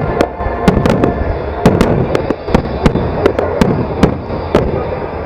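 Aerial fireworks bursting in a rapid, irregular string of sharp bangs, about three a second, over a continuous low rumble.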